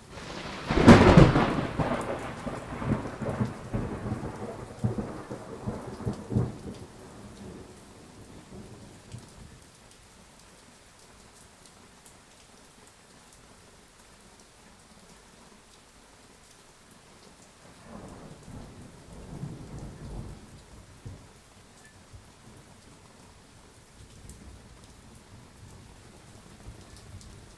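A sharp thunderclap about a second in, rumbling on and dying away over the next several seconds, then a softer, more distant roll of thunder later on. Steady rain falls throughout.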